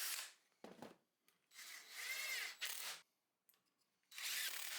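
Wooden board scraping and rubbing against the wooden frame as it is pushed and wedged into place, in three short bursts with a few faint clicks.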